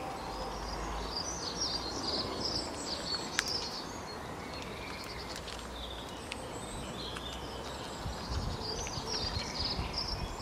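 Small birds twittering and chirping in quick high runs over quiet outdoor background noise, with a few sharp clicks.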